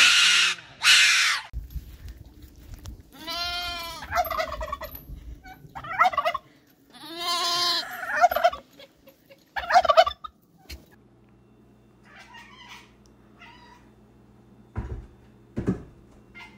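A white cockatoo screeching loudly at the start, then a sheep bleating: two long bleats with shorter calls between. Near the end, two short thumps as a cat jumps down from a kitchen counter.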